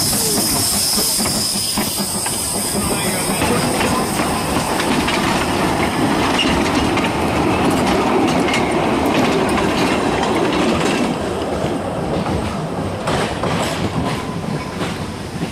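Narrow-gauge steam locomotive passing close, its escaping steam hissing at first, then its carriages rolling by with a steady clickety-clack of wheels over the rail joints. The rattling eases a little near the end as the train draws away.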